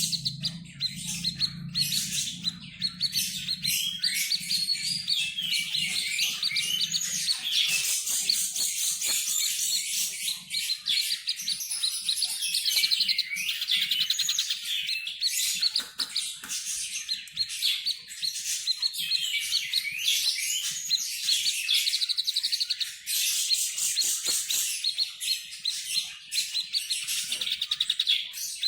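Tepus babbler singing without a break: fast, high chirps and twittering runs of notes, tumbling over one another.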